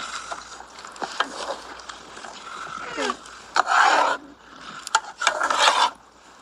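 Metal ladle scraping and stirring in a cooking pot: a few light clinks, then two longer scrapes near the middle and toward the end.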